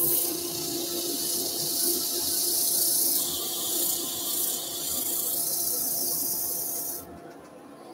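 Abrasive paper held against a sycamore plate spinning on a wood lathe: a steady sanding hiss that starts abruptly and stops about seven seconds in, over a faint steady hum.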